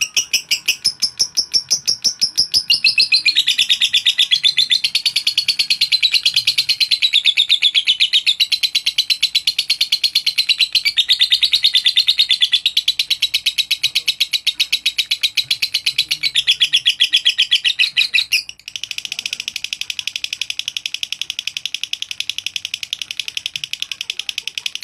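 Masked lovebird in long, continuous 'ngekek' chatter: a loud, unbroken rattle of very rapid high notes, the kind of song kept to provoke rival lovebirds into singing. About two-thirds of the way through it dips briefly and carries on slightly quieter and more even.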